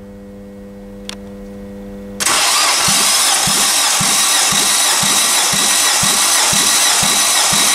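Nissan HR16DE 1.6-litre four-cylinder engine being cranked over for a compression test, starting about two seconds in after a faint steady hum. The cranking is loud and steady with a regular low pulse about twice a second as the cylinders come up on compression.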